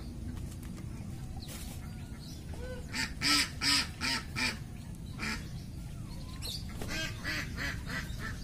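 Domestic ducks quacking: a quick run of about five loud quacks about three seconds in, then another run near the end, over a steady low background.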